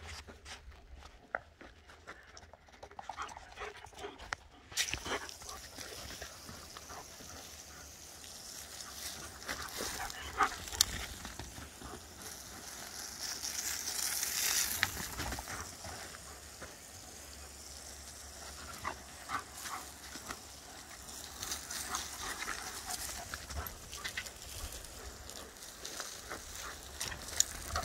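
Giant schnauzer puppy panting as it plays around a garden hose spraying water. The spray's steady hiss starts about five seconds in, with scattered sharp clicks and knocks.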